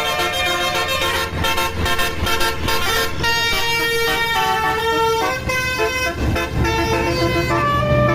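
Telolet basuri, a bus's 12-trumpet, 12-note musical air horn, playing a melody of held notes that change every half second or so. A low steady hum comes in under it near the end.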